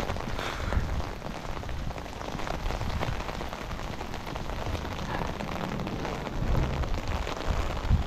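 Steady rain falling on wet pavement, with a low rumble of wind gusts on the microphone.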